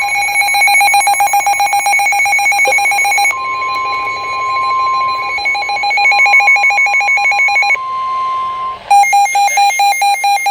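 Emergency Alert System broadcast tones. A steady alert tone just above 1 kHz sounds under a rapidly pulsing electronic alarm beep, and the beep weakens to a fainter warble about three seconds in. The steady tone stops near the end, and a loud, harsh warbling burst of digital header data follows, signalling the start of the next alert.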